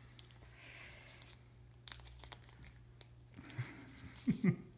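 Small plastic toy vending-machine capsule being twisted and pried open by hand: faint plastic clicks and rustling, with a few sharper sounds about four seconds in.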